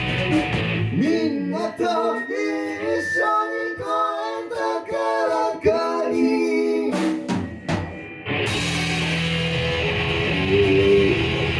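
Rock music: a sung vocal line over sparse backing for the first several seconds, then the full band with electric guitar and drums comes back in about eight seconds in.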